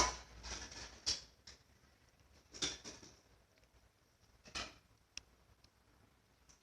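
Slime being squished by hand: a few short squelches and crackles with pauses between them, and a couple of small sharp clicks about five seconds in.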